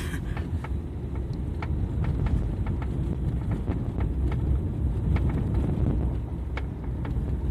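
Renault Fluence driving, with a steady road and engine rumble in the cabin under short, irregular knocks a few times a second. The knocking comes from the door side.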